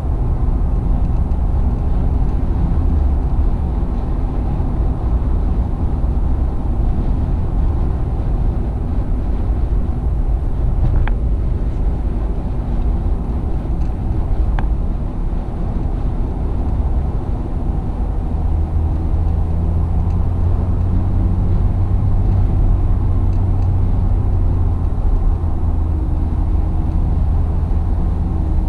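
Steady engine and tyre noise inside a car's cabin while driving at highway speed: a continuous low rumble whose deepest hum grows stronger for several seconds in the second half. Two faint clicks come a few seconds apart near the middle.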